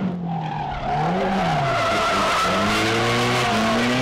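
Nissan Silvia S15 drift car's engine revving through a drift, its pitch rising and falling about a second in, then climbing steadily over the second half, with tyres skidding and squealing.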